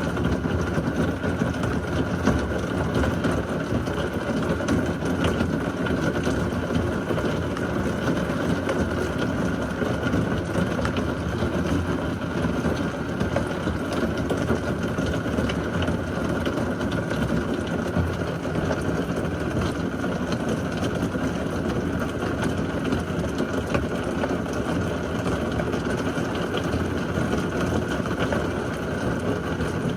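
Heavy thunderstorm rain falling steadily, a dense even rush.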